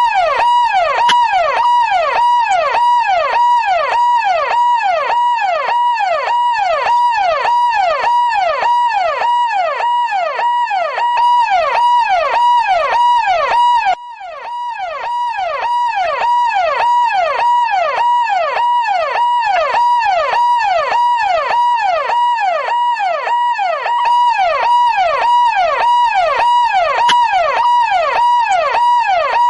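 Police car siren in a fast yelp, its pitch sweeping up and down about twice a second. About halfway through it drops out for a moment and swells back in.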